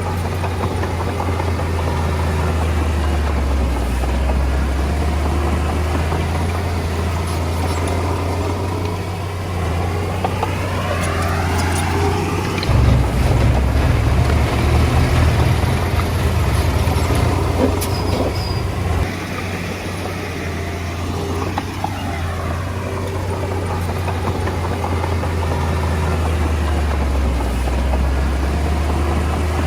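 Komatsu D20A bulldozer's diesel engine running steadily, growing louder and heavier for about six seconds around the middle before settling back.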